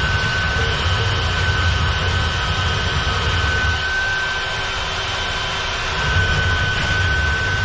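Kobalt power drain auger's electric motor running steadily while snaking a clogged sink drain, a constant high whine over a low rumble.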